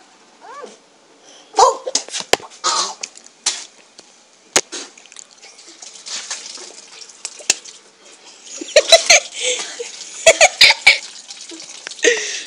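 Short bursts of boys' laughing and coughing, with a few sharp clicks in between.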